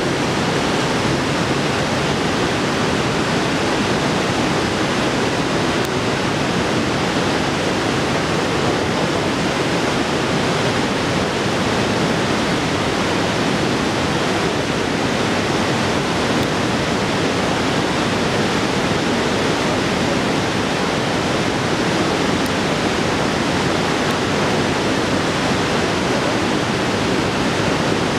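Iguazu Falls: a massive waterfall's water pouring and crashing into the gorge, heard as a steady, even rushing noise that never lets up.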